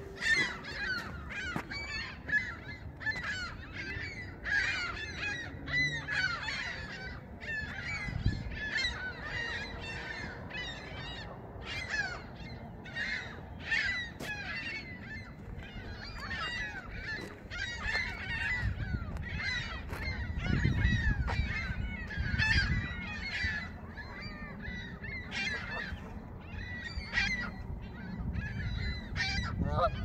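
A flock of Canada geese honking, many calls overlapping without a break. A low rumble swells underneath for a few seconds past the middle.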